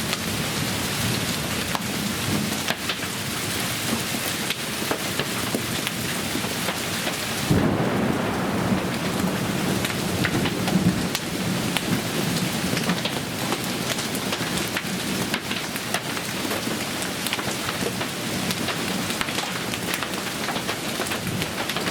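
A thunderstorm: heavy rain and hail pelting surfaces, with a dense rush of many sharp little impacts. About seven and a half seconds in the sound shifts, losing some hiss and gaining a fuller low rumble underneath.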